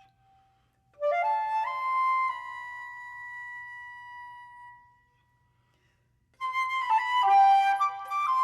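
Solo flute playing: a quick rising run about a second in lands on a long held high note that slowly fades away. After a short silence, a fast flurry of notes begins near the end.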